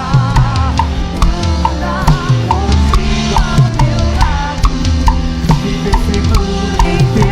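Full worship band playing with the drum kit up front: kick and snare drive a steady beat under sustained band chords and a wavering melody line.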